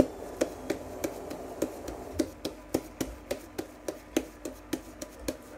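Homemade slime being kneaded and squeezed between the hands, making sharp clicking pops about three to four times a second as it sticks to and pulls off the palms.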